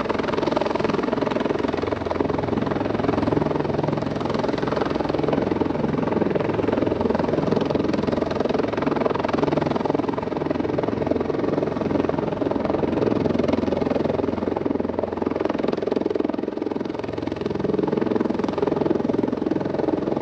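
Fire-rescue helicopter with a two-blade main rotor running steadily in a hover, a continuous rotor and turbine sound, with electronic background music mixed in underneath.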